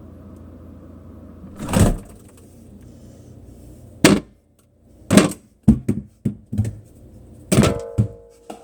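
Things being knocked and shifted about in a refrigerator or kitchen: a heavy thump, then a quick run of knocks and clatters, one of them ringing briefly. A steady low hum stops about four seconds in.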